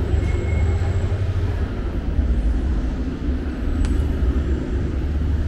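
Steady low rumble of city street ambience, with an even noisy haze above it and a faint click about four seconds in.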